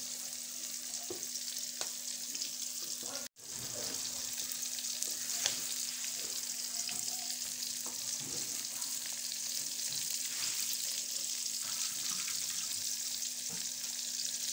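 Whole prawns frying in hot oil in a pan, their first side cooking: a steady sizzling hiss with scattered small crackles. The sound cuts out for an instant about three seconds in.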